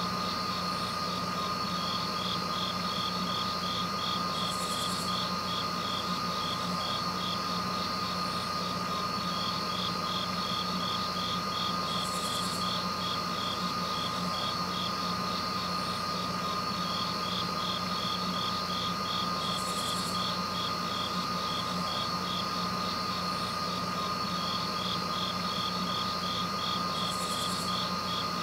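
Insects chirping in a fast, even pulse over a constant high tone and a low hum, with a short hiss that comes back about every seven and a half seconds.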